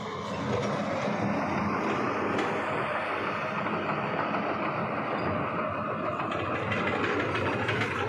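A large vehicle's engine running close by, steady and a little louder from about half a second in.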